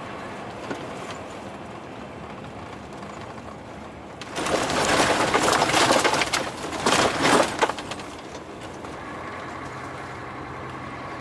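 Steady drone inside a moving truck's cab, from the engine and tyres on a snowy road. A little after four seconds in, a loud crackling hiss lasting about three seconds breaks over it, then fades back to the drone.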